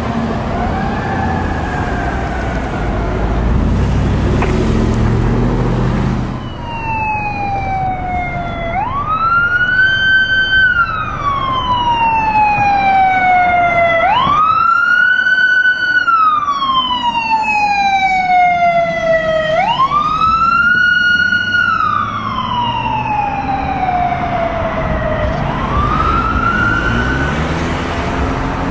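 Heavy truck engine rumble with a faint wailing siren, then a fire apparatus's mechanical siren sounding over it. The mechanical siren winds up four times, each time climbing quickly to a high wail and then coasting slowly down in pitch.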